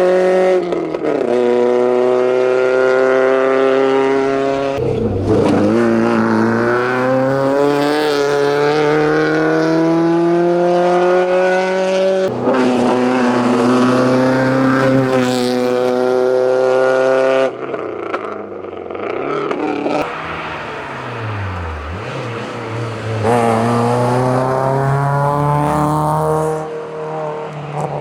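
Ford Fiesta XR2 hillclimb car at full throttle, its engine revving up through the gears with upshifts about 5 and 12 seconds in, then fading away. About 20 seconds in, a Hyundai Accent Cup race car takes over, lifting briefly, then revving hard again from about 23 seconds.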